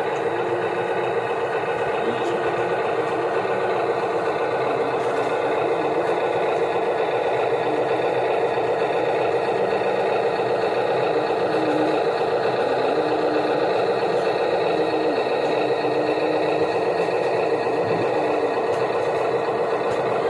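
Small electric motors of a radio-controlled construction model running in a steady whine, with the pitch wavering slightly now and then as the load changes.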